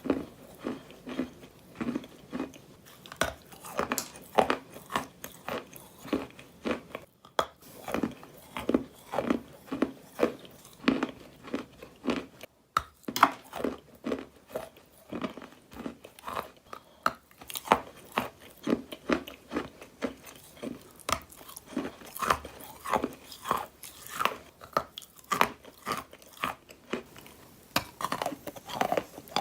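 Repeated wet, grainy crunching, about two crunches a second in a steady run, close up.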